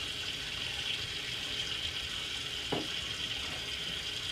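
Water running steadily from a faucet into a stainless-steel sink as a newborn's head is rinsed under the stream. One short sharp sound about two-thirds of the way through.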